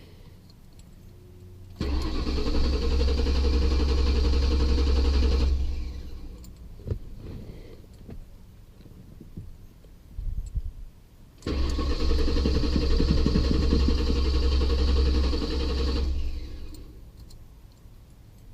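Ford Crown Victoria's 4.6-litre V8 being cranked by the starter twice, each time for about four seconds, without catching: a hard no-start just after stalling, which the owner suspects may be a failing fuel pump.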